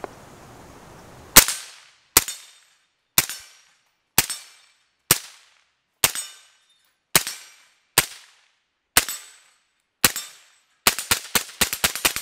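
Suppressed AR-15-style rifle fired semi-automatically: about ten single shots roughly a second apart, then a quick string of shots near the end.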